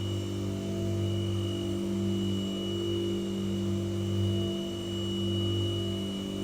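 White noise sound machine running steadily: a low hum with a faint high whine over a soft hiss, gently swelling and easing in loudness.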